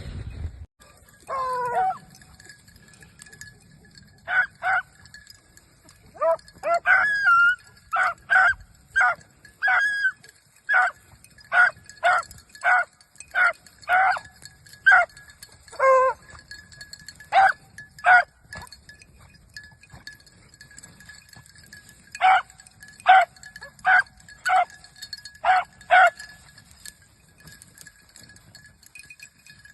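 Beagles giving tongue on a rabbit's track: a run of short, sharp barks, one or two a second, with a couple of longer drawn-out bawls among them. They pause for a few seconds in the middle, start again, and stop a few seconds before the end.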